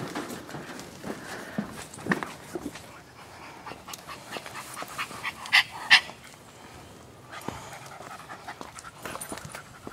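A dog panting on a walk, over scattered footsteps and rustling. Two short sharp snaps a little after halfway are the loudest sounds.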